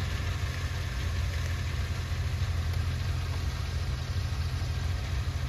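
Tractor engine and the straw reaper it drives running steadily in a low, even drone.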